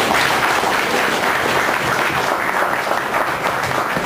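Audience applauding, the clapping starting suddenly and holding steady.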